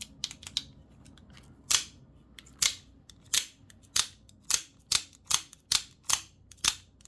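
A cheap out-the-front (OTF) automatic knife firing its blade out and back, a dozen or so sharp metallic snaps coming faster toward the end. It is being tested after fresh grease on its springs, and the owner still hears a little spring sing, the twang of the springs after each fire.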